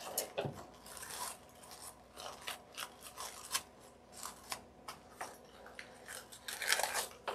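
Paper coffee filters crinkling and rustling in short, irregular scrapes as they are pressed and pinched into layers on a foam-board wing, with a louder spell of crinkling near the end as a fresh filter is handled.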